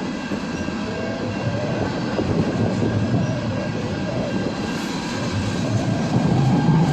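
A train passing on the tracks: a steady rumble of wheels and engine that grows louder toward the end.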